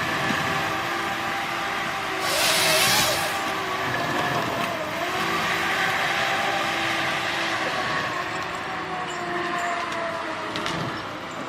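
John Deere 1270G forest harvester working: its engine and hydraulics run steadily, with pitch drifting slightly, and a loud burst of hiss at about two seconds in that lasts about a second.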